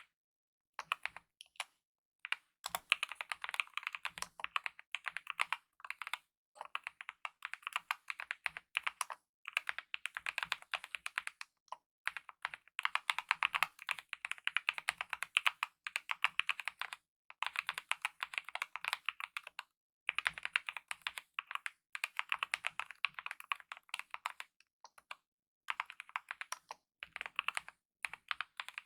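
Fast typing on a mechanical keyboard with lubed optical red linear switches and DSA-profile keycaps: dense runs of keystrokes in bursts a second or two long, broken by short pauses.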